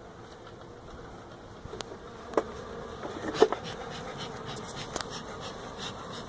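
Africanized honey bees buzzing steadily, getting louder about two seconds in, with a few sharp knocks.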